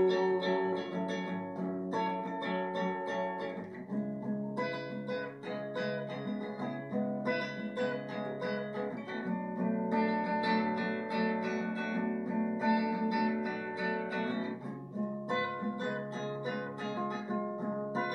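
Solo acoustic guitar playing strummed chords, with the chord changing every two to three seconds.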